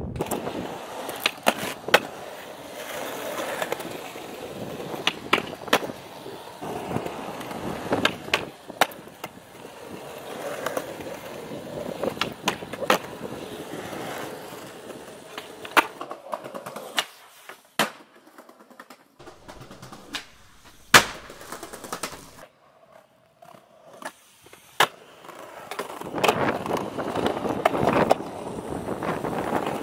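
Skateboard wheels rolling on concrete and asphalt, broken by many sharp clacks of the board popping and landing. There is a quieter stretch in the middle with only a few separate clacks.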